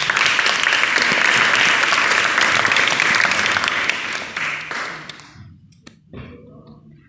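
Audience applauding: a dense burst of clapping that breaks out just before and dies away about four to five seconds in.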